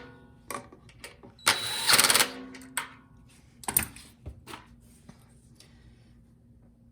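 Hand tool tightening a fastener on a small-engine carburetor: short bursts of ratcheting with metallic clicks, the loudest about two seconds in, dying away after about five seconds.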